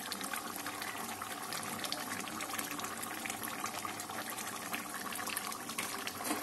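Fish and potato curry simmering in a wide pan, bubbling steadily with fine crackles.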